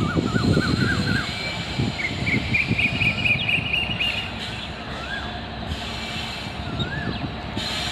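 An express train hauled by a WAP-7 electric locomotive approaching, with a low rumble and a high, wavering wheel squeal that steps up in pitch about two seconds in.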